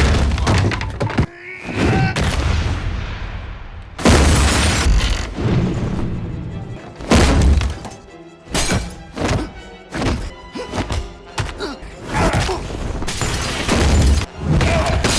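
Martial-arts fight scene soundtrack: music under a rapid run of heavy hits and thuds, with glass shattering.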